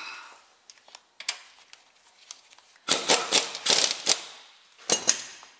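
Sharp metallic clicks and clanks of hand tools working on the engine: a few light ones, then a dense run of loud strikes about three to four seconds in, and one more clank near the end.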